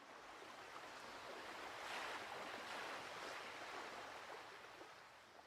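Ocean surf, a faint wash of breaking waves that swells and then eases off.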